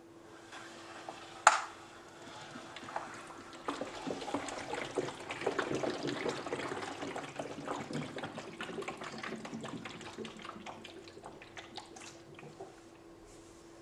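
Water sloshing and trickling as it flows through a Pythagorean theorem water-demonstration model. A single sharp knock comes about a second and a half in; the water sound starts a couple of seconds later, builds for a few seconds, then gradually dies away.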